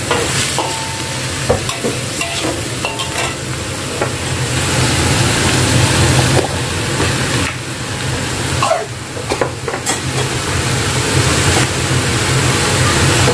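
Shredded bamboo shoots sizzling in a hot wok as a metal spatula stirs and tosses them, with scattered clicks and scrapes of the spatula against the wok.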